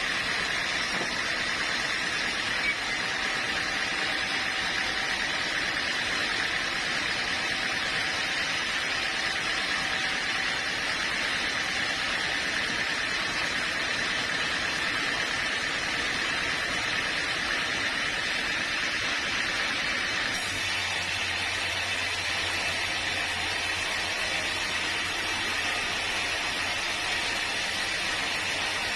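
Sawmill machinery running steadily, a hissing noise with a faint high whine. About twenty seconds in the sound changes abruptly and a low hum joins it.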